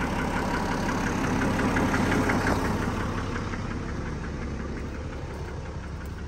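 An engine idling with a steady, regular clatter, growing gradually fainter after about three seconds.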